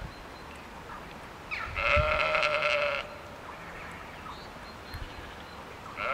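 Sheep bleating: one long, wavering bleat about two seconds in, and another starting at the very end.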